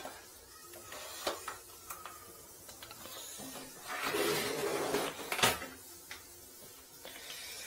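Clicks, knocks and rattling as a drain inspection camera kit in a hard case is handled and set up, with a rustling stretch about four seconds in and a sharp click about a second later, the loudest moment.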